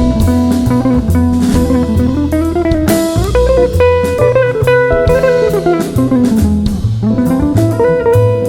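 Instrumental jazz break: a guitar plays a melodic solo line with sliding, bent notes over bass and a drum kit.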